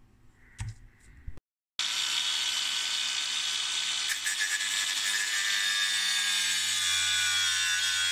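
Abrasive cut-off disc grinder running steadily and cutting into the sheet-metal case of a crystal oven oscillator. It starts just under two seconds in, with a high whine and grinding hiss.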